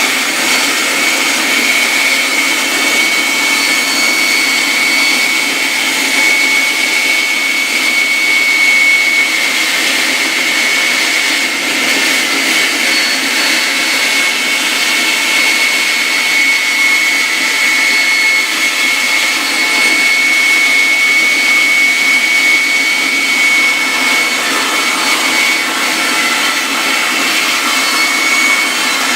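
Inca wood-cutting bandsaw running steadily while its blade cuts a circle from a wooden board turned on a pivot-pin circle jig: a constant rushing noise with a steady high-pitched tone.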